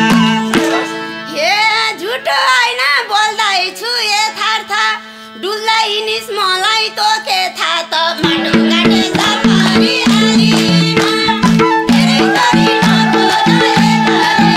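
Nepali folk ensemble playing an instrumental break: the madal drumming stops about half a second in, leaving an ornamented solo melody with sliding pitch over a held low note. About eight seconds in the madal rhythm comes back, and a long held high note runs over it near the end.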